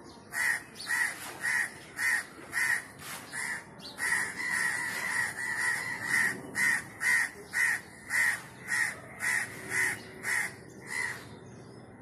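House crows cawing in a rapid run of harsh calls, about two a second, with a more drawn-out stretch of calling about four to six seconds in.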